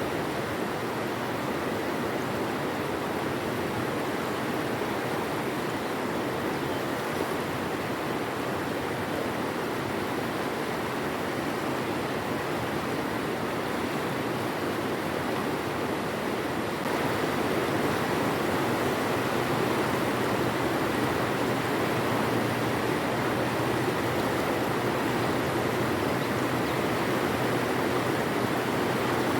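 River water flowing and rushing steadily, getting a little louder about halfway through.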